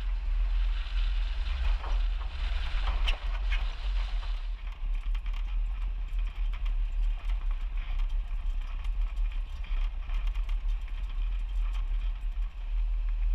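Off-road truck driving along a rough desert gravel track, heard from a camera mounted on the outside: a constant deep wind rumble on the microphone, with crunching and rattling clicks from the tyres and bodywork over the stones. The hiss over it eases about four and a half seconds in.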